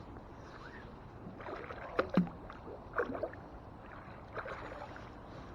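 A few sharp knocks and clinks of the fishing magnet and metal finds being handled, the loudest about two seconds in and another about a second later, over a faint background hiss.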